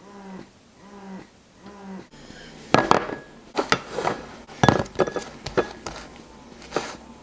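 A short pitched call repeating about every 0.7 s, then, after a sudden break about two seconds in, a run of sharp clinks and knocks like dishes and utensils being handled, which is the loudest part.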